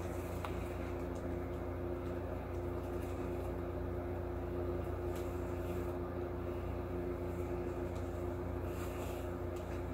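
A steady low hum with a constant droning tone, like an appliance or air conditioner running in the room. There are a few faint soft rustles and clicks as a cloth face mask is handled.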